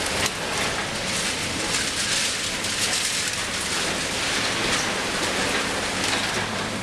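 A steady dense hiss with fine crackling runs over the low hum of a Liebherr 954 demolition excavator's diesel engine.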